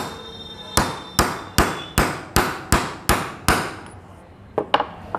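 Hammer blows on a steel seal driver, seating a new oil seal into the aluminium pinion housing of a Mahindra Scorpio power steering rack: about nine sharp metallic strikes, roughly two and a half a second, that stop a little before four seconds in, followed by a couple of light taps.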